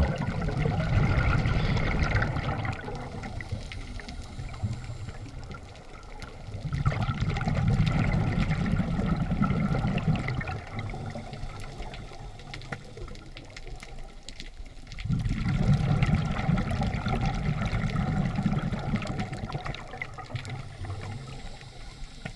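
Scuba diver breathing through a regulator underwater: three long bubbling exhalations of a few seconds each, about every seven to eight seconds, with quieter stretches between.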